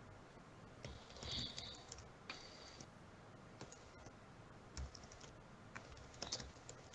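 Faint, irregular clicks and taps, some coming in short clusters.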